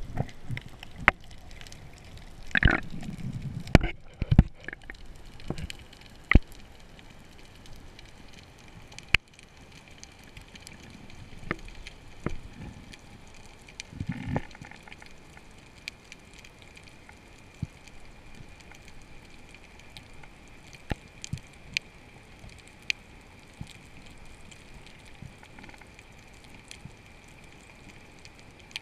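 Underwater sound heard through a camera's waterproof housing during a breath-hold spearfishing dive: a faint steady hiss with sharp clicks and knocks scattered throughout, and a rush of water and bubbles a couple of seconds in and again about halfway.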